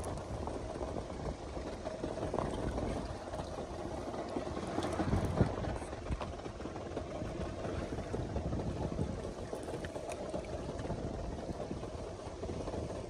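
Small fishing boat's engine idling steadily, with water sloshing against the hull.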